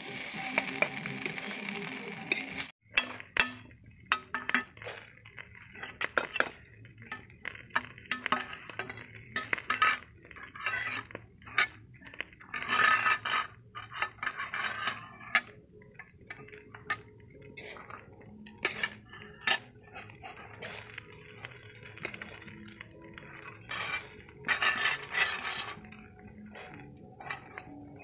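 A metal spoon stirring rice in a metal kadai (wok), making irregular scrapes and clinks against the pan, with a few longer scraping runs.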